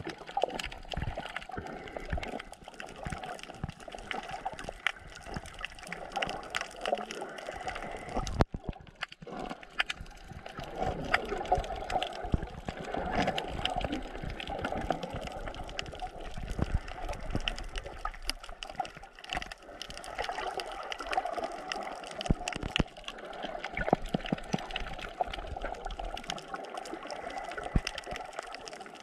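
Underwater sound picked up by a snorkeler's camera: muffled water gurgling and sloshing, with many small irregular clicks throughout.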